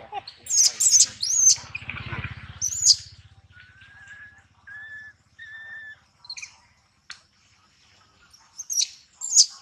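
Bouts of short, high-pitched chirping calls, the loudest about a second in and again near the end, with three short steady whistled notes in the middle and a low rumble about two seconds in.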